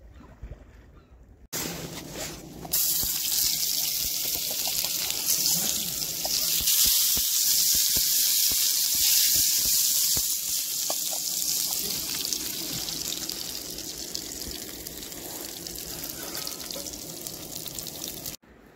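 Sliced onion rings and potato slices frying in a pan on a camping stove, sizzling in a loud, steady hiss that starts about two seconds in and stops suddenly near the end.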